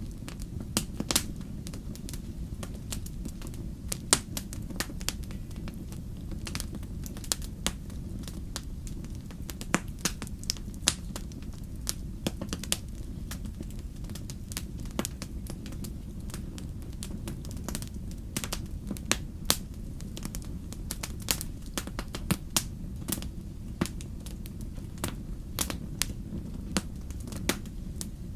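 Wood campfire burning, with irregular sharp crackles and pops, several a second, over a steady low rumble of the flames.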